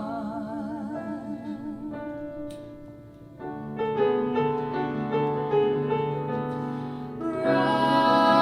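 Show tune sung live over piano. A singer holds a long note with vibrato over a repeated accompaniment figure that fades about two seconds in. Piano chords follow, and singing with vibrato comes back near the end.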